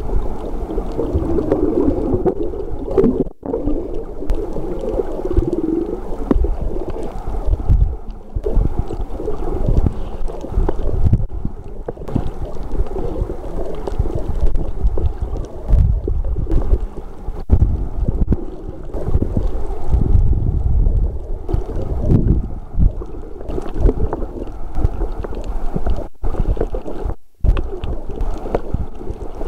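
Muffled underwater rumble and gurgling of water moving past an underwater camera, uneven and low, with a few brief dropouts.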